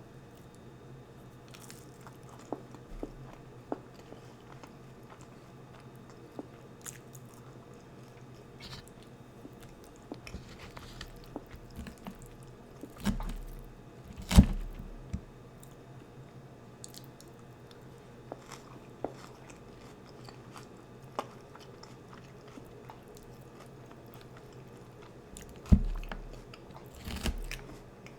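Close-miked eating: food being bitten and chewed, with small clicks throughout and a few loud, sharp crunches about halfway through and again near the end.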